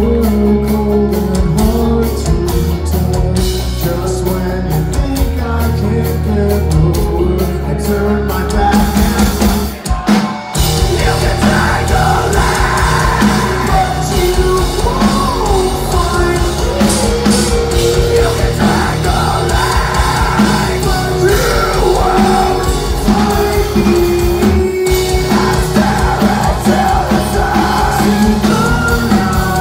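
Live metalcore band playing loud, with distorted guitars, drums and singing. About ten seconds in the music drops out for a moment, then the full band comes back in.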